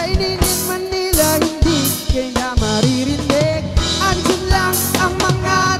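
Live band playing: drum kit keeping a steady beat under electric guitar and bass guitar, with a lead melody that slides up and down in pitch.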